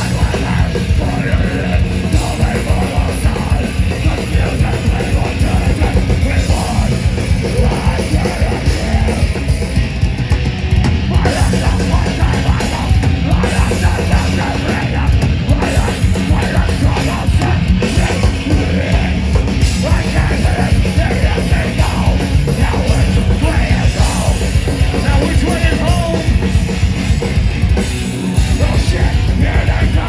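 A metalcore band playing live, loud and fast: heavily distorted guitars, rapid pounding drums and screamed vocals, heard from within the crowd on an open-air festival stage. The music breaks off briefly about two seconds before the end.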